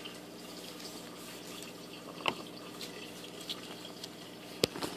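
Small plastic parts of a CO2 drop-checker being handled on a table: a few light clicks and taps, the sharpest near the end, over a faint steady hum.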